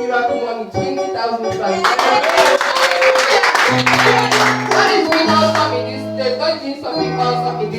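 Live worship music: voices singing over sustained low keyboard or bass notes, with a dense run of percussive hits, clapping or drums, in the middle.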